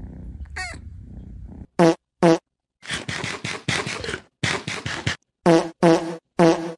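A low cat purr, then, about two seconds in, a run of comic fart sound effects. Two short pitched blasts come first, then a long rapid fluttering one with a brief break, then three more short blasts near the end.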